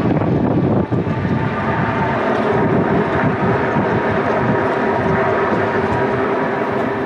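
Electric e-bike's hub motor whining steadily under pedal assist in level three, mixed with the hum of 20 by 4-inch fat tyres on asphalt. Wind buffets the microphone underneath. The whine grows a little stronger about halfway through.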